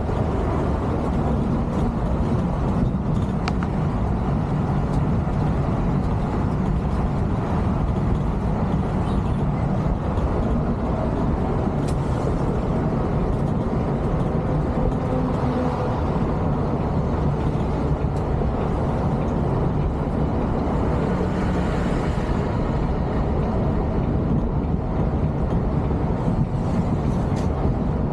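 Steady low drone of a Volvo B11R coach cruising on a highway, heard from inside the front cabin. The rear-mounted six-cylinder diesel hums under a continuous rush of tyre and road noise.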